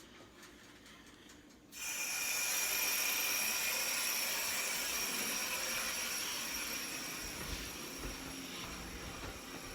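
An electric blender starts about two seconds in and runs steadily with a high motor whine, blending a thick mix.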